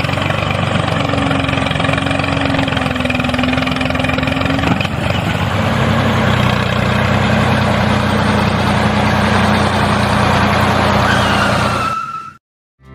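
Tractor engine running steadily, its note shifting about five seconds in; it cuts off abruptly near the end.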